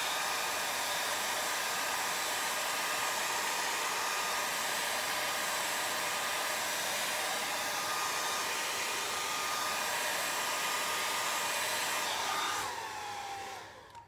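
Handheld hair dryer blowing steadily, a rush of air with a steady motor whine. Near the end it is switched off and the whine falls away as the motor spins down.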